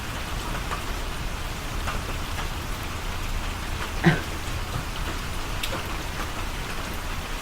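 Steady rain falling, with one brief short sound about four seconds in.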